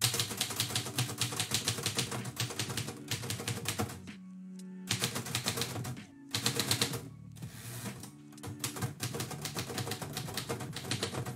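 Manual typewriter being typed on: rapid key strikes clacking in bursts, with a short pause about four seconds in and another brief break just after six seconds.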